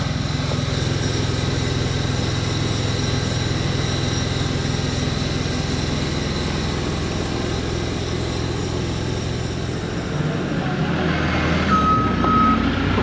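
Skid steer engine running steadily, growing louder in the last few seconds; near the end its reversing alarm starts beeping.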